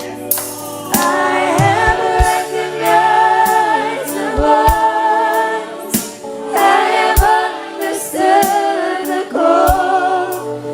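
Gospel song sung by a group of women's voices together, over band accompaniment with drum hits.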